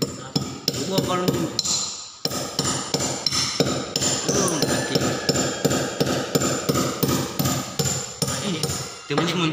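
Claw hammer driving a nail into a wall: a steady run of quick strikes, about three a second, with a short pause about two seconds in.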